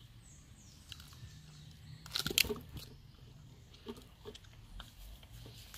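Crunching and scraping of damp soil being dug by hand and with a machete, with a short cluster of louder crunches a little over two seconds in and a few faint ones later.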